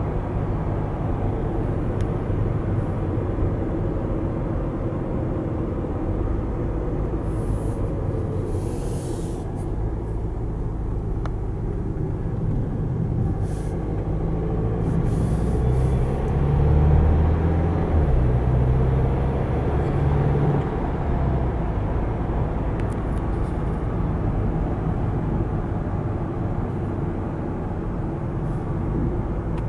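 Steady engine and road noise heard inside the cabin of a Renault Espace on the move. The low rumble grows louder around the middle as the car speeds up.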